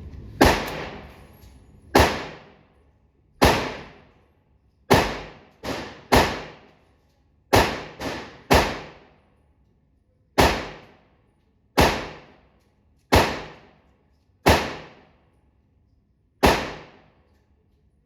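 Single shots from a Tisas Zigana PX-9 9 mm pistol fired at a steady pace: about fourteen sharp cracks, mostly one to two seconds apart, each trailing off briefly.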